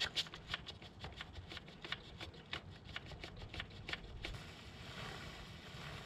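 A three-sided chain brush scrubbing the wet drive chain of a Triumph Thruxton R in quick back-and-forth strokes, about four or five a second. From about four seconds in the strokes blur into a steadier scrubbing hiss.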